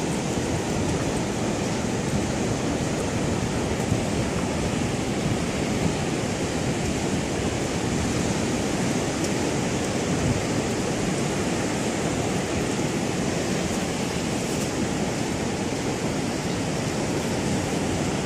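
Steady rush of ocean surf breaking and washing up the beach, mixed with wind.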